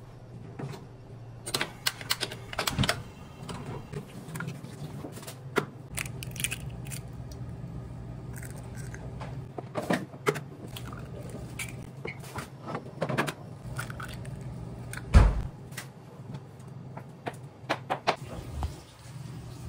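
Eggs being cracked and put into a four-cup frying pan on a gas range: scattered light taps and clicks of shell and pan, with one louder knock about fifteen seconds in, over a steady low hum.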